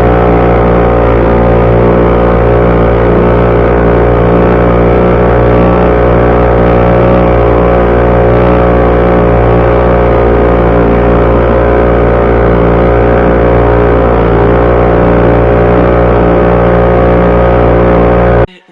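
HDX 3.6 outboard motor running at a steady speed, pushing a rowing boat along. It cuts off suddenly near the end.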